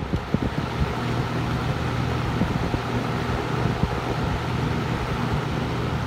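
Early-1970s Windsor (Lakewood-built) model C-14 14-inch metal-bladed box fan with a GE motor running on high speed: a steady rush of air over a low motor hum. The airflow buffets the microphone in irregular low thumps.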